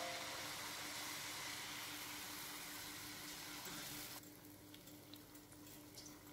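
Pua batter deep-frying in hot oil in a steel pan, sizzling steadily. About four seconds in, the sizzle drops abruptly to a quieter crackle with scattered pops.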